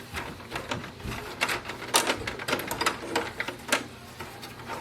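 Irregular sharp plastic clicks and ticks from an HP DeskJet 4100 printer's paper roller and its surrounding parts as the roller is wiped with a damp cloth.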